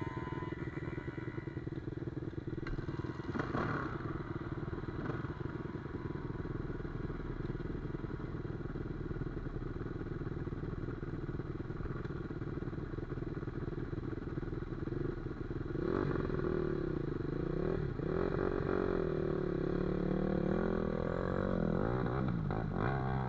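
Dirt bike engines idling steadily. From about sixteen seconds in, an engine revs up and down repeatedly and grows louder.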